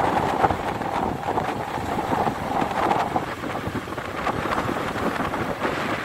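Sea surf breaking and washing over a rocky shore in a steady rush, with wind buffeting the microphone.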